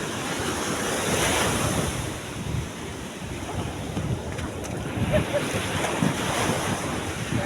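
Wind buffeting the microphone over the wash of sea waves, in gusts with a louder swell about a second in.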